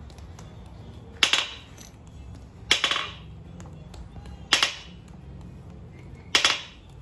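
Four hand-hammer blows striking a bar of modelling clay on the anvil, each a sharp smack with a brief ring, coming every second and a half or so in an even rhythm.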